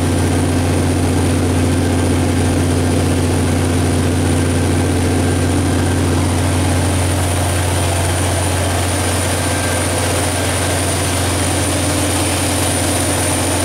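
Detroit Diesel / MTU 12V4000 V12 diesel engine of a 1360 kW generator set running at a constant speed, a steady deep drone with a thin high-pitched whine over it.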